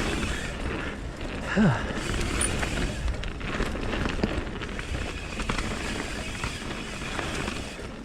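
Mountain bike running down a dirt trail: tyre roar on the dirt, wind on the microphone and the chain and frame rattling over the bumps, with a short grunt from the rider about one and a half seconds in.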